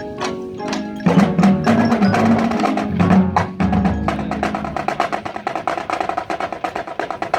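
High school marching band playing: sparse mallet-percussion notes, then the full band comes in loud about a second in, and from about four seconds a fast, steady run of drum and stick strokes carries on under a held chord.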